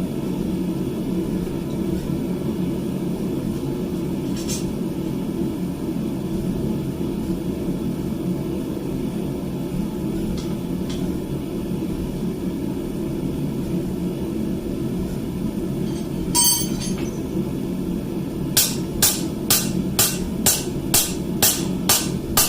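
Steady low roar of a forge running, then near the end a run of about nine hammer blows on hot steel at the anvil, about two a second.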